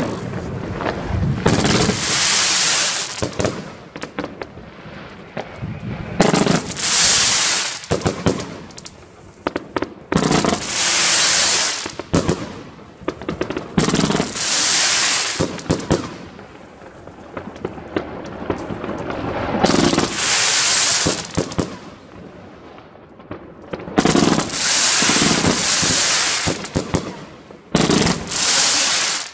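A 108-shot, 30 mm firework compound cake firing: bursts of crackling about a second long come every few seconds, with sharp pops of shots launching in between.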